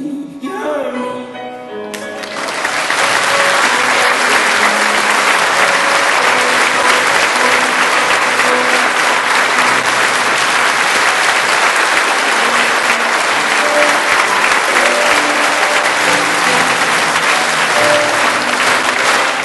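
A man's voice ends, and about two seconds in a large audience breaks into loud, sustained applause, with a piano playing along underneath.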